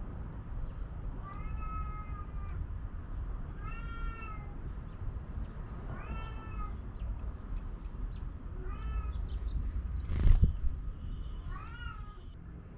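An animal making five drawn-out, meow-like calls a couple of seconds apart, each rising and falling in pitch, over a steady low background rumble. A brief loud thump comes about two-thirds of the way through.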